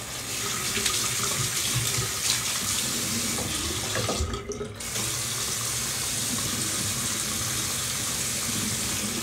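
Hot water running from a bathroom sink tap in a steady stream into the basin. The rush briefly drops out for about half a second around four seconds in, then carries on.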